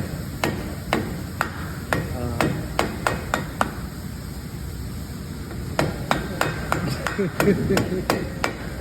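Repeated hammer blows on the metal of a car's front wheel assembly, knocking it loose for a CV axle replacement. A run of sharp strikes comes about two a second, then a pause of about two seconds, then another run of strikes.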